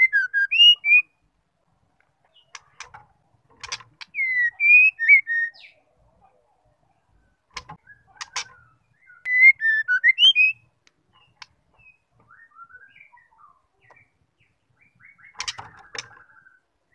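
Female white-rumped shama (murai batu) singing: three short bursts of loud, fluty, looping whistles about four to five seconds apart, mixed with sharp clicking notes, then softer scattered chirps and a cluster of clicks near the end.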